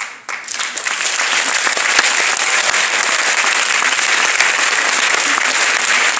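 Audience applauding, building up over the first second into steady, loud clapping.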